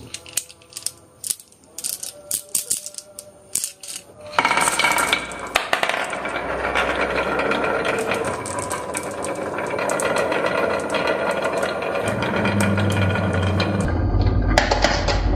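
Marbles clacking along a marble run track: a few separate clicks at first, then from about four seconds in a dense, continuous rattle of many marbles rolling and knocking together.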